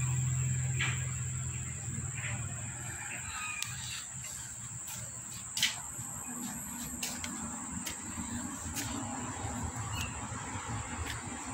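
Steady high-pitched insect trilling, like crickets. A low hum runs under it for the first three seconds, and light clicks and taps are scattered through, the sharpest about five and a half seconds in.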